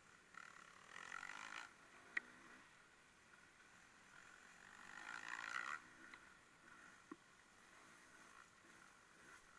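Faint, distant racing engines swelling twice, the second swell rising and then cutting off sharply, with a short sharp click about two seconds in.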